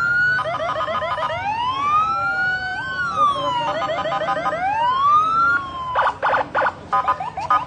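Several sirens sounding at once, wailing up and down in pitch and overlapping, with stretches of fast warbling yelp. Near the end they break into short, rapid chirping bursts.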